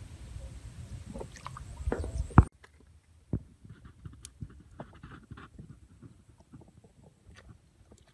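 Hands groping and squelching through shallow mud and water, small wet splashes and clicks, over a low rumble that ends abruptly with a sharp knock about two and a half seconds in. After that, only faint scattered squelches and drips.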